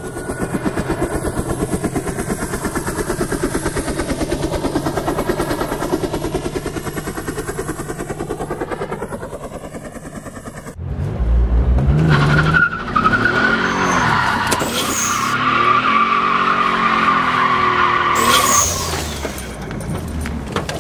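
Car engine running with a fast, even pulse for the first half. About halfway through it turns suddenly louder, revving up and down with tyres squealing.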